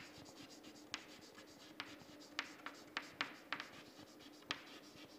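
Chalk writing on a blackboard: irregular sharp taps and short scratches of the chalk, about two a second, over a faint steady hum.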